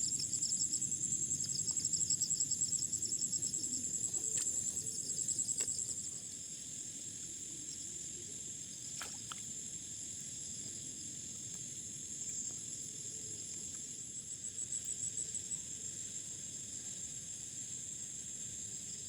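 Night chorus of crickets and other insects: a steady high-pitched trilling, with a louder pulsing call on top for about the first six seconds that then stops, leaving the steady trill. A couple of faint clicks about nine seconds in.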